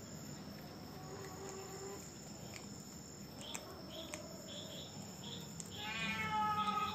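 Crickets trilling steadily at night, with a few short faint chirps in the middle and a faint pitched voice-like sound near the end.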